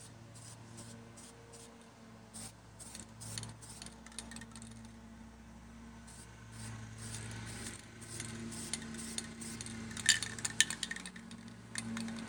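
Aerosol spray paint can being handled and shaken, its mixing ball rattling in scattered sharp metallic clicks, with a quick run of loud clicks about ten seconds in.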